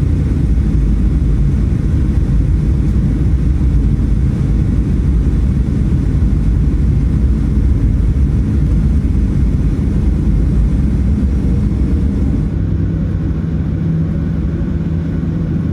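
Steady low rumble of a Boeing 737-900's engines and airframe heard from inside the cabin around landing. Near the end the hiss above the rumble falls away and a steady low hum comes up.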